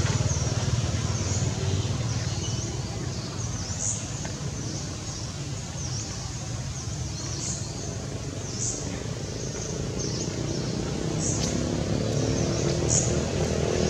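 Steady low hum of motor traffic, with short high chirps every second or two. Near the end an engine, likely a motorbike, grows louder as it approaches.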